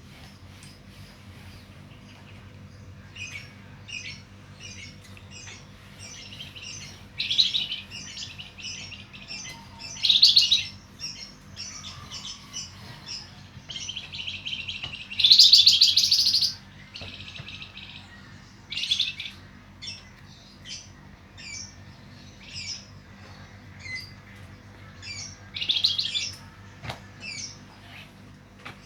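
Javan fulvetta (wergan jawa) singing busily: a string of short high chirps broken by several louder, fast trilled phrases of about a second each, the longest around the middle, over a faint steady low hum.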